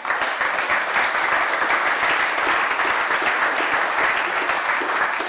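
A crowd applauding: many hands clapping steadily, with no lull, for about five seconds.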